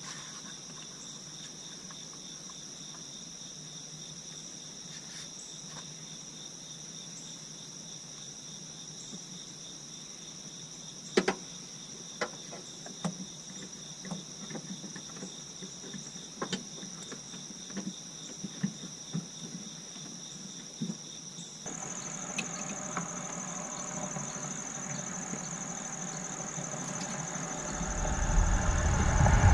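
Insects, crickets, chirring steadily at a high pitch throughout, with the pitch shifting about two-thirds of the way through. A scattering of sharp clicks and knocks comes in the middle, and a low rumble builds near the end.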